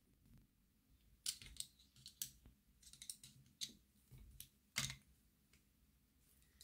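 Faint, irregular clicks and small taps of a tool working at a Hornby OO-gauge locomotive chassis as its wheels are prised out, with a sharper click about five seconds in.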